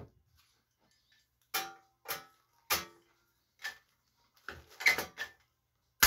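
Hand pop-rivet tool being squeezed to set a rivet through a sheet-metal panel in a bicycle frame: a series of sharp metallic clicks about every half second, coming quicker near the end.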